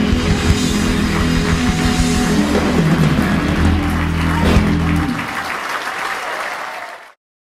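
Live rock and roll band holding the final chord of a song, with a last hit on the drums just before it stops about five seconds in. Audience applause follows, then the sound cuts off abruptly near the end.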